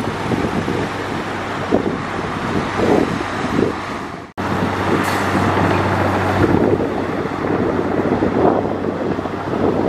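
Heavy diesel earthmoving machinery running: a steady low engine hum with a rough, pulsing noise of machines working soil, and some wind on the microphone. The sound drops out for an instant about four seconds in, then carries on slightly louder.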